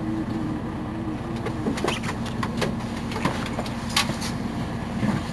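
Mercedes-Benz Citaro C2 city bus engine idling steadily at a standstill. Several sharp clicks and knocks come through it from about a second and a half in.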